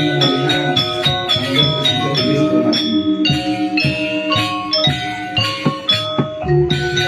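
Balinese gamelan playing: tuned metal-bar percussion struck in quick, busy patterns, the notes ringing on over one another.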